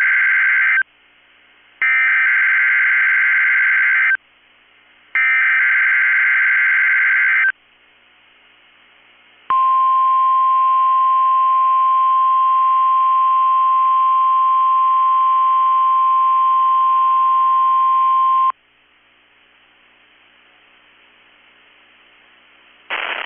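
NOAA Weather Radio emergency-alert data header: three harsh bursts of warbling digital data tones, each about two seconds long with a second's gap between them, the first already under way. Then the 1050 Hz warning alarm tone sounds steady on one pitch for about nine seconds and cuts off, leaving faint hiss. Together they mark a Required Weekly Test.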